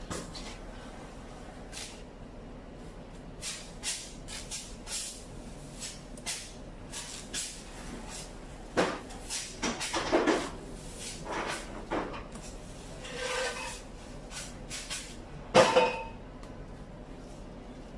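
Masking tape being pulled off the roll in short rips and pressed along a bus's body panels to lay out stripes for a repaint, heard as a string of brief tearing strokes at irregular intervals. A louder short sound stands out about two seconds before the end.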